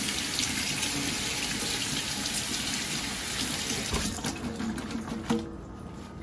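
Kitchen tap running, water splashing over scallions as they are rinsed; the water is shut off about five seconds in, with a couple of light knocks near the end.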